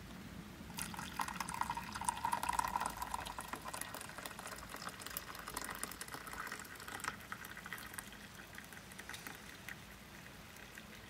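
Water poured from a stainless-steel vacuum flask into a ceramic mug, a steady splashing stream that starts about a second in and tapers off near the end.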